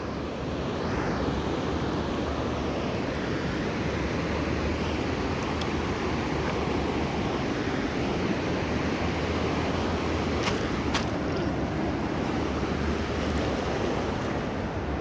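River water rushing steadily, with two brief sharp clicks about two-thirds of the way through.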